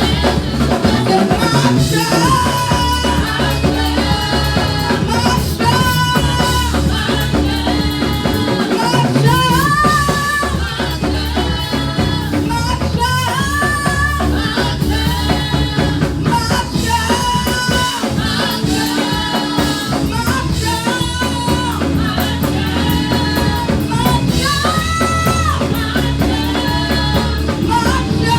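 Worship music with singing voices holding and bending long notes over a drum kit and a steady bass line.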